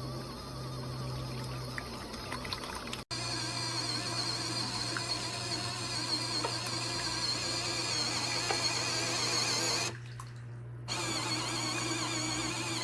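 Small portable washing machine running: a steady motor hum with water swishing as it agitates the load. The sound drops out briefly about three seconds in and again near ten seconds.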